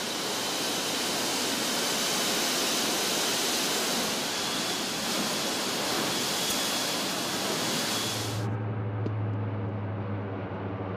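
Rushing wind and engine noise at the open jump door of a C-130 Hercules in flight. About eight and a half seconds in, it cuts abruptly to the steady low hum of the C-130's four turboprop engines as it flies over.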